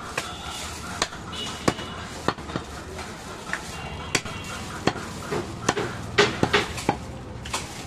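Butcher's cleaver chopping goat meat on a wooden stump block: about a dozen sharp knocks at irregular intervals, coming in a quick run about six seconds in.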